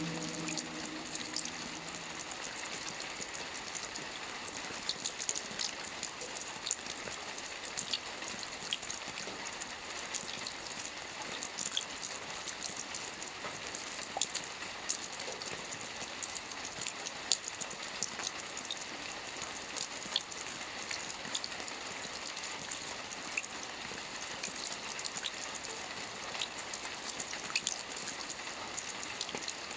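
Steady rainfall, an even hiss with many separate raindrop hits sounding as sharp ticks throughout.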